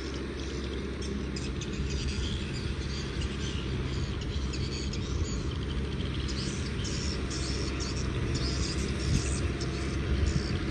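Kubota M6040 tractor's diesel engine running steadily at work, a low, even engine note with a scratchy rattle above it.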